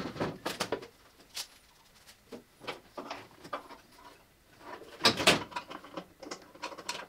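Scattered light knocks, clicks and scrapes of a gutted steel car door, a 1964 Triumph TR4's, being held up and shifted against the body to line it up with its hinges, with a louder cluster of clunks about five seconds in.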